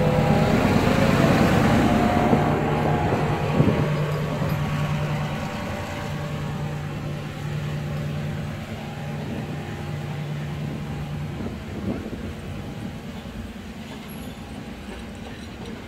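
Sri Lanka Railways Class M2 diesel locomotive running as it pulls its train out. Its engine drone fades steadily as it moves off and is lost about eleven seconds in, while the passenger carriages rumble past.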